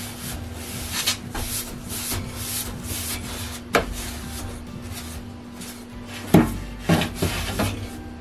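A long-handled brush swishing and scraping its bristles along wooden shelf boards. Near the end come four sharp knocks as the brush hits the wood.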